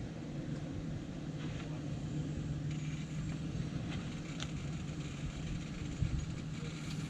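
Off-road SUV engine running at low, steady crawling revs as the vehicle climbs bare slickrock, with a low rumble. A single thump comes about six seconds in.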